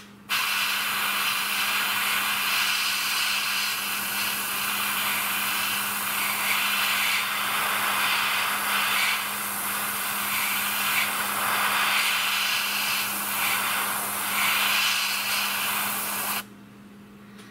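Airbrush spraying a wet clear gloss coat: a steady hiss of air and paint that wavers a little as the trigger is worked and cuts off suddenly near the end.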